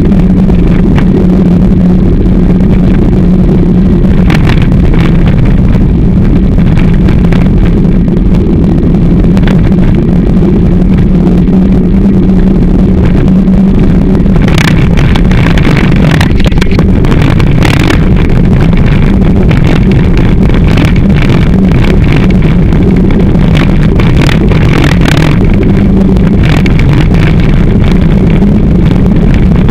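Loud, steady rumble of a handlebar-mounted camera on a moving mountain bike, picking up vibration through an uncushioned mount along with wind, with a constant low hum. Several sharp knocks break through as the bike jolts over bumps in the trail.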